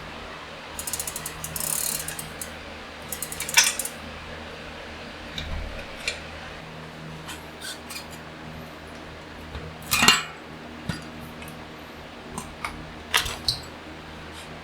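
Hand tools and metal bicycle parts clicking and clinking while components are taken off a steel-frame single-speed bike, with two short bursts of rapid ratcheting clicks in the first few seconds and a few sharper metal knocks later.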